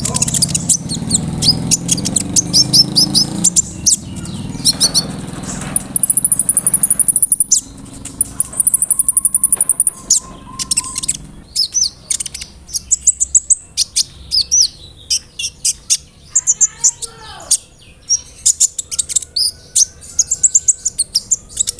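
A kolibri ninja (konin) singing fast, high-pitched chirping phrases in rolling bursts, with two long, high buzzing trills about six and nine seconds in; these buzzy trills are the kind of cricket-like fill that konin keepers prize.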